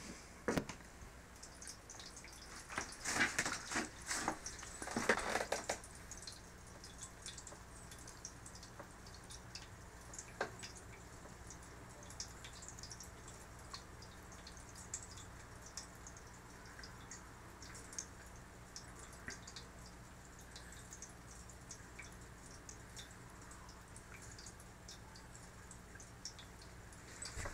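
Handling knocks and rustles for the first few seconds. Then a Drinkwell 360 stainless-steel pet fountain runs: water trickling and dripping with a low steady hum, and small irregular splashes as a kitten drinks from the stream.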